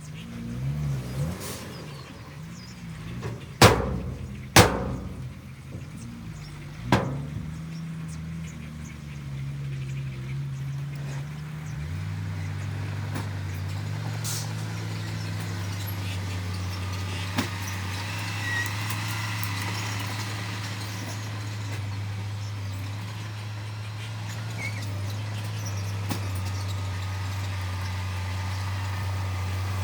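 Diesel engine of heavy construction machinery running. Its pitch shifts for the first dozen seconds, then it settles to a steady drone. Three loud bangs come in the first seven seconds.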